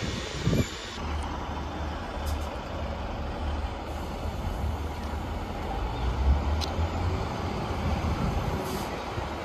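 Class 156 Super Sprinter diesel multiple units' engines running with a steady low rumble, standing at the platform.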